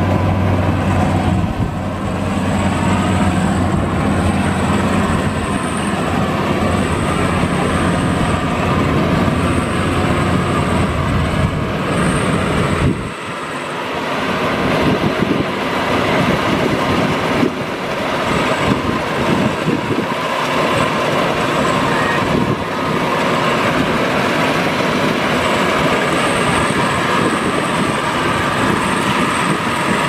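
FMWORLD Bimo X rice combine harvester running under load: engine and threshing machinery droning steadily. About 13 seconds in the deep hum drops away suddenly, leaving a thinner, rattling machine noise.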